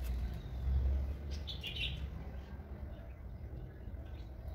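A bird chirping briefly, a short high burst about a second and a half in, over a steady low rumble.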